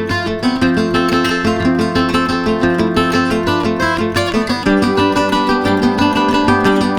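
Background music: an acoustic guitar being strummed and plucked in a steady rhythm.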